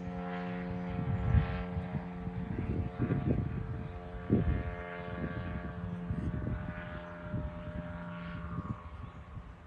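A model aircraft's engine and propeller drone steadily overhead, fading near the end, with gusts of wind thumping on the microphone.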